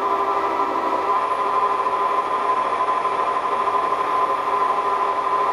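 Metal lathe turning a copper-alloy flywheel blank while the tool cuts its face and throws off chips. It is a steady machine sound with a constant high hum and the hiss of cutting.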